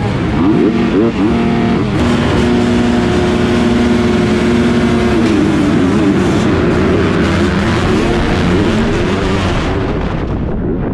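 A pack of motocross bikes, the rider's own Yamaha YZF 250 four-stroke heard closest, revving and then held at high revs on the starting gate; about five seconds in the gate drops and the engines rev hard and change gear as the bikes accelerate off the start.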